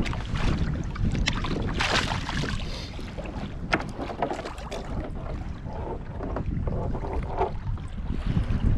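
Wind buffeting the microphone over water lapping around a plastic sit-on-top kayak, with a few sharp knocks and clicks as a float line spool and paddle are handled.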